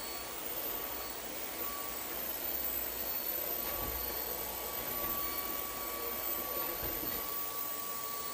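Cordless stick vacuum cleaner running steadily: an even rush of air with a thin high whine from the motor, and a low rumble about four seconds in and again near seven seconds.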